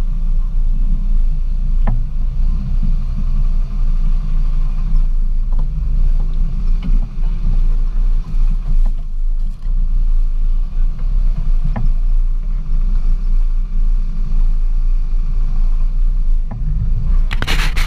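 Jeep Wrangler YJ driving slowly on a dirt trail: a steady low engine and drivetrain rumble with a few light knocks.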